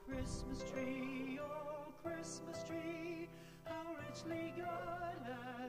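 Background music: a sung melody of long held notes with vibrato, the notes changing every second or so.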